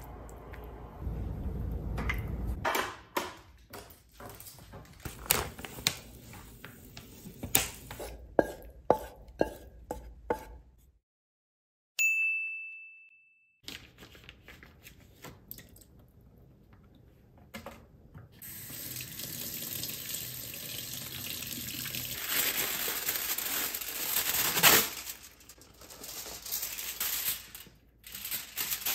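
Kitchen handling sounds: a metal fork clinking against a plastic food container in a run of sharp clicks, then a single bright ding that rings out about twelve seconds in. Later a tap runs steadily into a stainless steel sink for about ten seconds.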